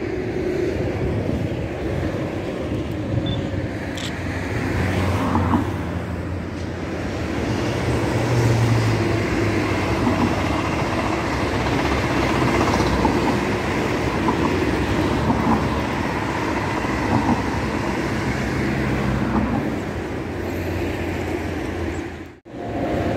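Two coupled TGV Duplex double-deck high-speed trainsets passing: a steady rush of wheels on rail and air that builds as the train draws near and stays loud as it runs by, cut off abruptly near the end.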